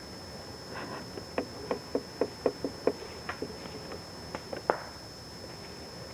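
A quick series of about a dozen sharp thuds, roughly four a second, ending with a louder one.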